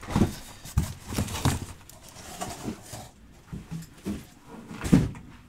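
Cardboard trading-card boxes knocking and sliding as they are handled and pulled from a case: a run of light knocks in the first second and a half, then a single louder thump near the end.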